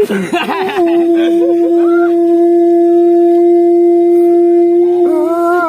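A blown wind instrument holding one long steady note: it wavers in pitch as it starts, then holds level for about four seconds, and wavers again near the end.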